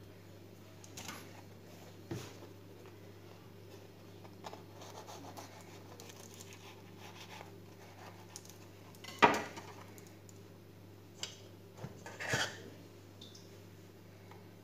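Metal spoon scraping and clinking against a stainless steel mixing bowl as cream is scooped out to fill choux pastry puffs. There are scattered light clinks, a sharp one about nine seconds in and another around twelve seconds, over a steady low hum.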